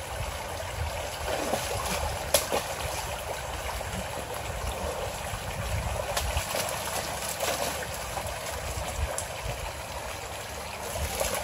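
Shallow rocky creek flowing and trickling over stones, with a few brief clicks.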